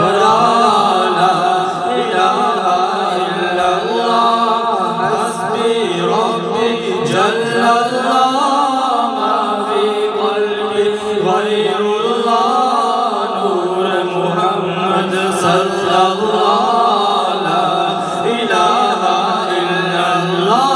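Two men chanting an unaccompanied devotional naat together into microphones, amplified over a PA. The singing runs as one long melodic line with drawn-out, gliding notes and no instruments.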